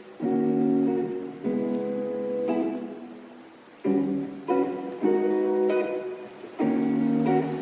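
Background music: a strummed guitar playing chords with a steady pulse.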